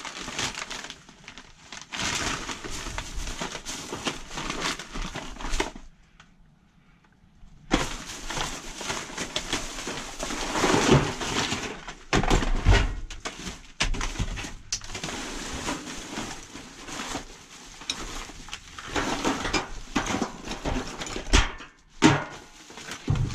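Hands rummaging through a bag of discarded computer parts and cords: the bag rustling, with hard plastic and metal parts knocking and clattering against each other. A lull of about two seconds comes about six seconds in.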